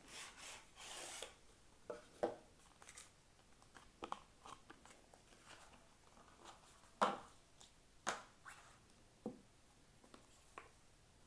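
Cardboard knife box being opened and handled: a rubbing hiss of the sleeve sliding in the first second or so, then scattered light taps and clicks as the black hard case is pulled out and turned in the hands, the sharpest about seven seconds in.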